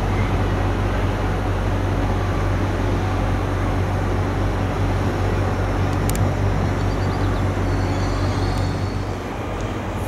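Alstom Régiolis (Coradia Polyvalent) bi-mode multiple unit pulling away from the platform, a steady low drone with a single click about six seconds in.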